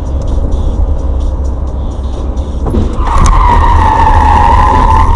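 A car's tyres squealing in a long skid as it loses control, starting about three seconds in and easing slightly in pitch, over the steady road rumble heard from inside a moving car.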